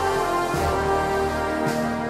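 Background theme music with held notes, the chord changing about half a second in and again near the end.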